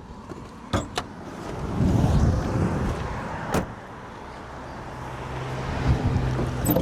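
A 1995 Holden Commodore's bonnet being opened: clicks from the bonnet release and latch, a rustle of handling, then one sharp clack past the middle. A steady low hum comes in near the end.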